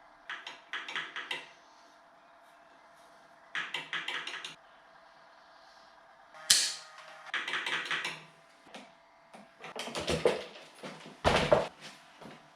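Hand work on a steel bicycle: short bursts of rapid clicking and several sharp metallic knocks, with pauses between them.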